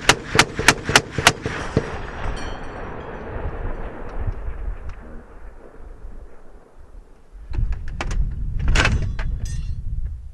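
M2 .50 caliber heavy machine gun firing a burst of about five shots, its echo rolling away over the next few seconds. A second burst comes about eight seconds in.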